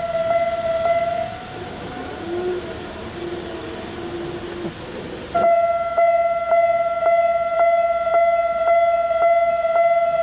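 Japanese level-crossing warning bell ringing in a steady repeated ding, about two strikes a second. Partway through it drops back under a quieter, noisier stretch with a lower wavering tone, then returns loud and abruptly about five seconds in.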